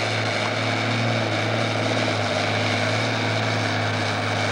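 Farm-stock pulling tractor's diesel engine running flat out under heavy load, dragging the weight-transfer sled, with a steady, unchanging pitch.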